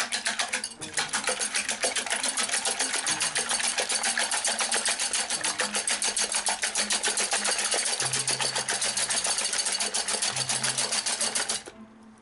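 Stainless wire whisk beating eggs in a glass bowl: a fast, even rattle of the wires striking the glass, stopping shortly before the end.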